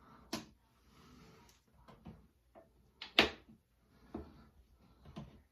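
Scattered clicks and knocks from a wall light switch and a flathead screwdriver being handled while the switch is screwed into its box. There is a sharp click just after the start and a louder knock about three seconds in.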